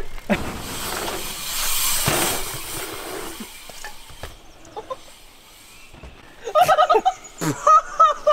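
A rush of wind and handling noise on the microphone for the first few seconds, then short, high-pitched vocal whoops near the end, loud and wavering.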